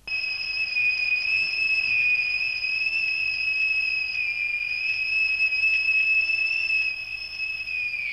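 Factory knock-off whistle blowing the six o'clock signal for the end of the working day: one long, steady, high-pitched blast, its pitch starting to fall right at the end.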